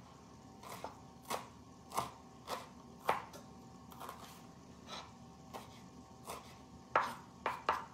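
Kitchen knife chopping fresh cilantro on a wooden cutting board: a series of sharp, uneven knife strikes, roughly two a second, with the loudest few near the end.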